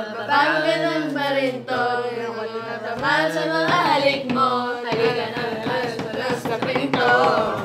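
Several voices singing together, drawing out long notes that waver and glide in pitch.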